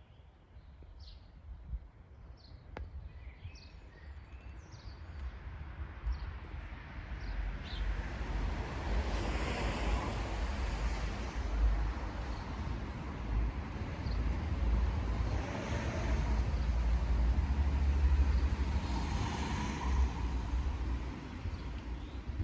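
Wind buffeting the microphone: a gusty rumble that builds and stays strong. Birds chirp in the first few seconds.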